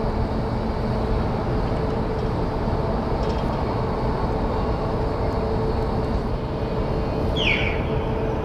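A large ferry's machinery running as it comes alongside its berth: a steady low rumble with a constant hum. About seven and a half seconds in, a short high squeal glides downward over it.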